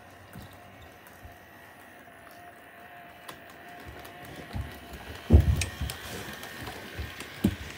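HO scale model train running: the CSX locomotive's small electric motor gives a steady faint whine, with the clicking and rumble of the locomotive and boxcars on the track, growing louder from about four seconds in as the train passes close by. A few low thumps, the loudest about five seconds in.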